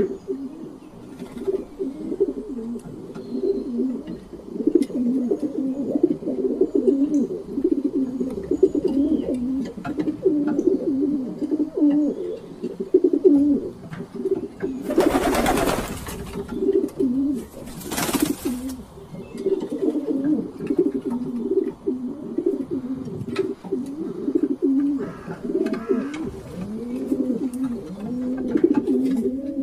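Pigeons cooing continuously, several low coos overlapping. About halfway through come two short, loud rushing noises.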